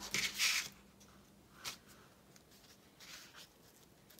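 A sheet of paper being handled and laid down onto another, with a few short rustles. The loudest comes in the first half-second as the page slides into place, and softer ones follow as it is pressed flat by hand.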